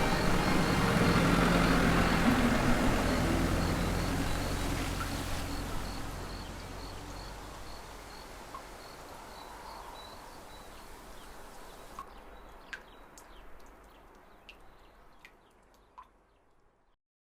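Music fading out over the first few seconds into faint outdoor ambience: a steady high chirping, about two chirps a second like an insect, then a few sharp bird-like chirps near the end before it all fades away.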